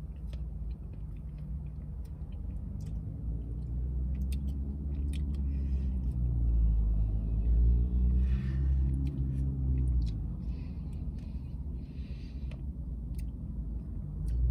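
A motor vehicle's engine rumbling close by, swelling over several seconds and then fading away, with small clicks and soft chewing sounds on top.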